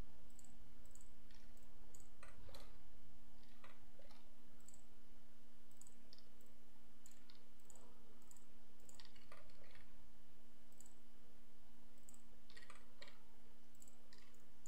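Computer mouse clicking at irregular intervals, single clicks and quick little runs, over a steady low electrical hum and hiss.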